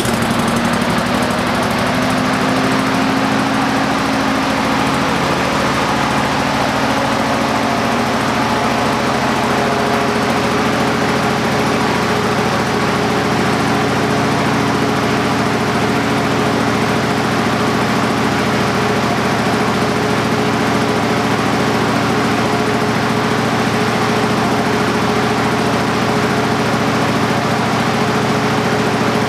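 16 hp Briggs & Stratton engine running steadily and loud at high speed just after starting, held up by its governor because no throttle cable is connected. Its exhaust goes through a home-built muffler that does little to quiet it.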